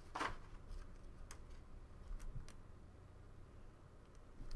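Faint handling noise from trading cards and their plastic cases: a brief rustle at the start, then a few soft clicks in a quiet room.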